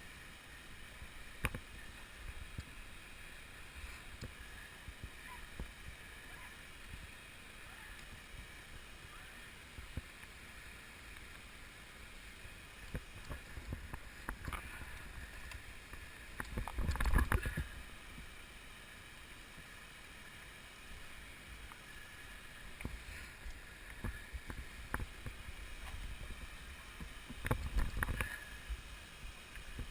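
Steady faint hiss with scattered clicks and low rumbling buffets on the microphone. The buffets are strongest about seventeen seconds in and again near the end.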